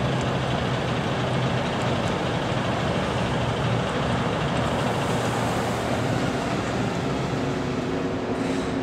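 Diesel engine of a Caetano Levante coach running as it pulls slowly up and past at close range. The engine hum is strongest in the first few seconds, under a steady wash of traffic noise.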